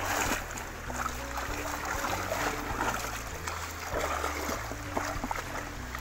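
Water splashing and rustling as a dip net is pushed and swept through grassy bank vegetation in a shallow stream, in irregular bursts, with background music running underneath.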